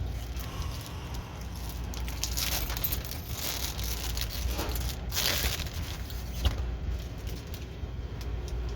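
Plastic packaging crinkling and rustling as it is handled, loudest about two to three and a half seconds in and again around five seconds in, over a steady low hum.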